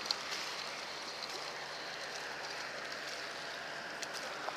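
Steady wash of sea water lapping against the rocks of a seawall, with one sharp click just after the start.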